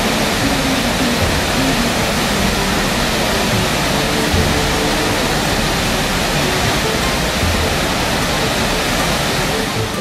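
Waterfall pouring into a pool: a loud, steady rush of falling water. Faint music sits underneath.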